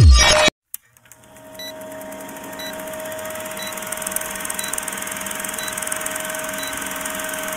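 Old-film countdown sound effect: a film projector's mechanical whir with a steady hum, fading in about a second in, with a faint tick once a second as the leader counts down.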